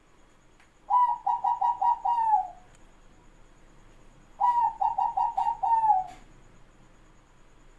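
Zebra dove (perkutut) cooing: two song bouts, each a quick run of about six short staccato coos ending in a longer, falling note.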